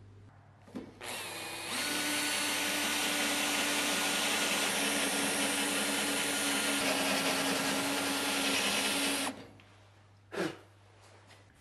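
Electric drill spinning up and boring steadily through the steel upper front crossmember of a Saab 900 to drill out a spot weld. It runs for about eight seconds and stops abruptly, followed by a single short knock.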